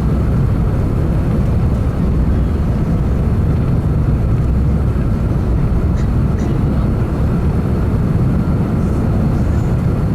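Steady, loud low rumble inside the cabin of an Airbus A350-1000 landing: engine, airframe and runway noise.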